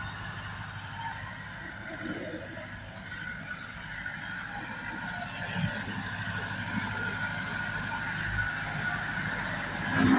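Same orchard tractor's 90 hp diesel engine running steadily while it drives a rear rotary tiller through the soil. The sound grows a little louder toward the end.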